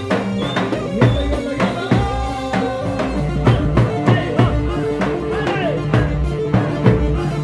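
Live Arabic dabke music: a large tabl drum beaten with a stick and frame drums keep a steady, driving beat under a melody line.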